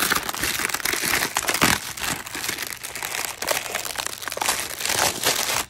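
Clear plastic wrap crinkling as it is pulled by hand off a foam tool tray: a dense run of fine crackles that stops abruptly at the end.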